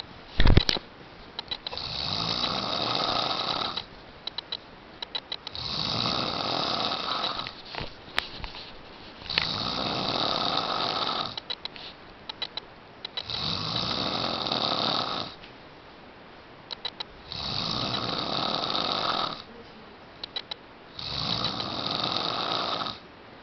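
A person snoring: six harsh, rasping snores about every three and a half to four seconds, each lasting a second and a half to two seconds, with short runs of quick clicks between them. A single loud thump comes about half a second in.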